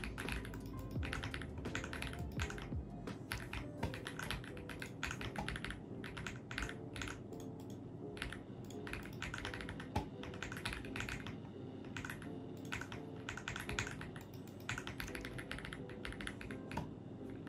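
Typing on an AULA F75 mechanical keyboard: a steady, irregular run of key clicks, several a second, with soft music underneath.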